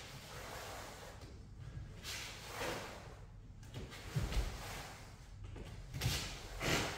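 Rustle and swish of a cotton karate uniform with each slow kata movement, and dull thuds of bare feet stepping on a wooden dojo floor, the clearest about four seconds in and again near six seconds.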